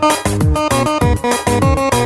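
Electronic dance music from a live DJ set: a fast, steady kick drum under a bright keyboard melody.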